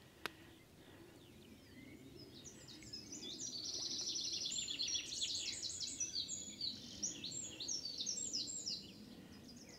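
A songbird singing one long song of rapid, varied high notes that starts a couple of seconds in and stops shortly before the end, over faint steady outdoor background noise. A single click sounds just after the start.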